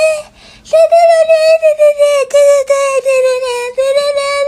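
A high-pitched singing voice, likely electronically altered, holding nearly one note as a string of short repeated syllables. It breaks off briefly about half a second in and dips slightly in pitch for a moment near the end.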